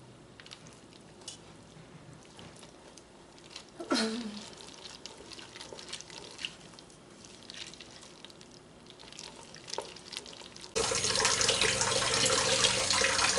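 Faint clicks and small taps of kitchen handling, with one sharper knock about four seconds in; near the end a kitchen tap is turned on and water runs hard into the sink.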